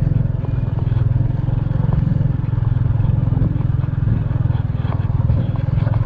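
Small motorcycle engine running steadily at low revs while the bike rolls slowly along a dirt road, heard from the rider's seat.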